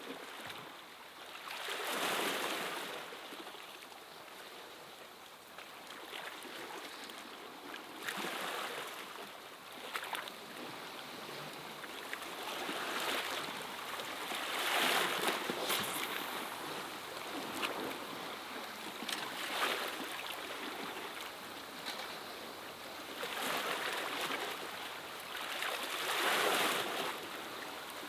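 Sea waves washing against a rocky shore, surging up and drawing back every few seconds.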